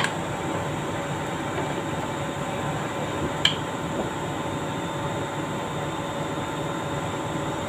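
Euro-brand 2-ton electric chain hoist lowering its hook under pendant push-button control, running with a steady hum. A sharp click at the start and another about three and a half seconds in.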